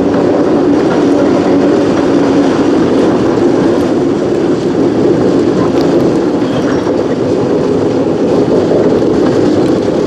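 Alco RS11 diesel-electric locomotive's V12 engine running steadily as it moves a cut of empty tank cars slowly through the yard, the cars rolling on the rails.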